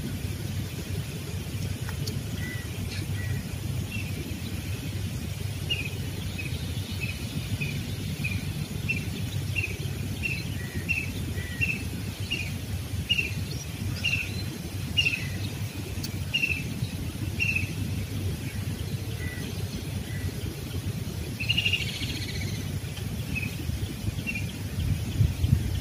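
A bird calling a short, repeated chirp about twice a second for around twelve seconds, with a brief busier flurry later, over a steady low rumble. A louder thump comes near the end.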